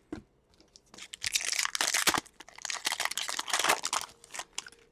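Foil wrapper of an Upper Deck Trilogy hockey card pack being torn open and crinkled in the hands: a run of crackling and tearing from about a second in until near the end.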